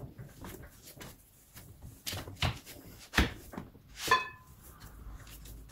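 Hands kneading and pressing pastry dough on a wooden pastry board: soft, irregular pats and thuds, with a sharper knock about three seconds in and a short knock with a brief ringing clink about a second later.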